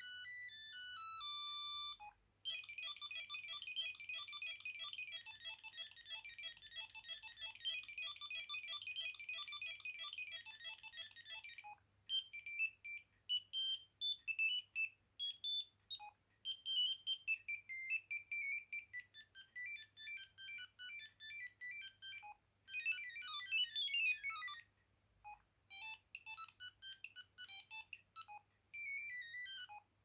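Ringtones of a Sendo S330 mobile phone playing from its small speaker as they are previewed one after another. Each short tune stops abruptly when the next is selected. The longest runs from about two to twelve seconds in.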